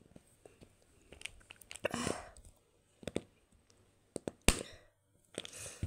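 Crunching and crackling sounds: scattered sharp clicks and two short rustling bursts, one about two seconds in and one near the end.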